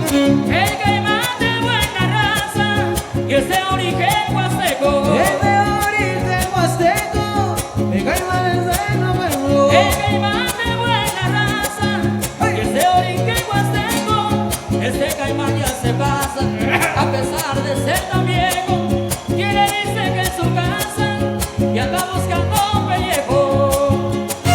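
Live huapango music: a violin playing a winding melody over a fast, steady strummed string rhythm.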